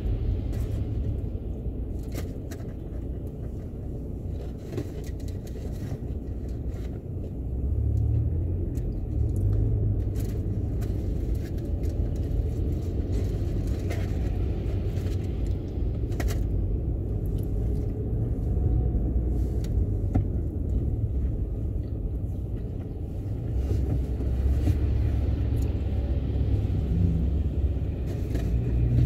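Low, steady rumble of a car's engine and tyres on a wet road, heard from inside the cabin, swelling a little twice as the car moves off, with scattered faint clicks.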